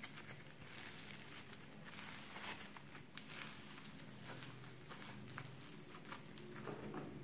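Pink floam slime being stretched and squeezed by hand, its foam beads crackling and popping in a dense run of tiny clicks.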